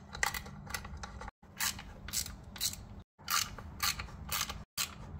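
Socket ratchet clicking in short runs as the acorn nuts on a Honda engine's valve cover are turned off, over a low steady hum.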